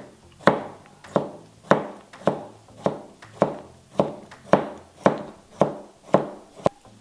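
Chef's knife slicing a pickled cucumber into rounds on a plastic cutting board: a steady run of about a dozen crisp knocks of the blade on the board, a little under two a second.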